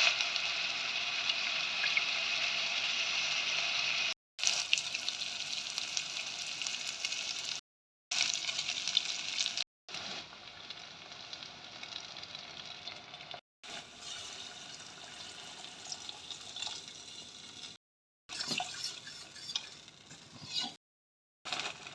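Food frying and sizzling in a hot pot, with the odd click of stirring, in several short clips joined with abrupt cuts; the sizzle is loudest in the first eight seconds and quieter after that.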